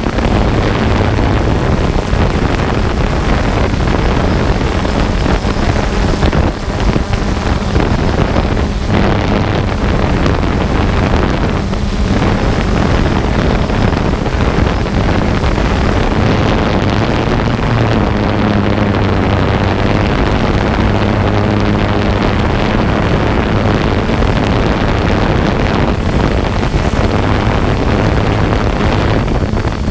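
3DR Solo quadcopter's electric motors and propellers running steadily in flight, heard up close from the camera it carries: a loud, even noise with a low hum that shifts a little in pitch partway through, with wind on the microphone.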